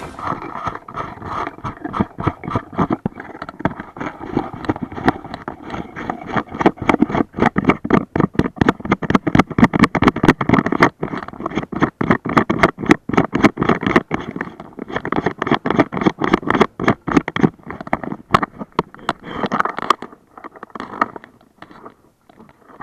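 Handling noise on the camera's microphone: a dense, irregular run of scrapes, rubs and knocks as the camera is moved about against cloth. It thins out near the end.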